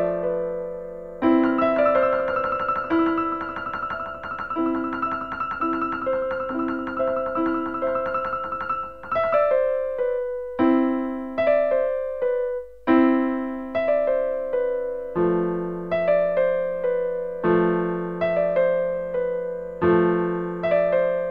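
Background music: a solo piano playing gentle chords. During the first half a quick run of repeated high notes plays over the chords. After that, single chords are struck about every two seconds and each one dies away.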